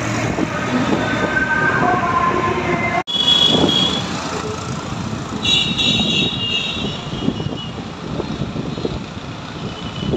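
Music cut off abruptly about three seconds in. It gives way to steady road and wind noise from riding a two-wheeler through city traffic, with short high vehicle beeps around 3.5 seconds and again around 6 seconds.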